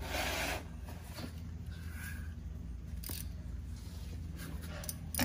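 Rustling and a couple of light knocks as a person squeezes under a van's front bumper, over a steady low hum.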